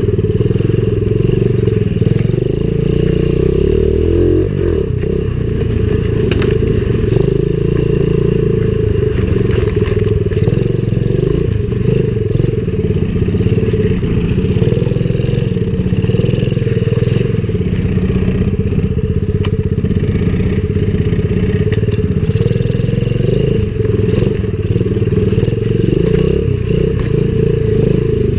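Coolster 70cc pit bike's small four-stroke single running steadily, heard from the rider's seat as it rides a rough trail, with a few short knocks along the way.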